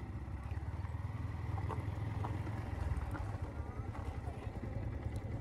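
Yamaha motorcycle engine running steadily, a low even drone, with a few faint ticks over it.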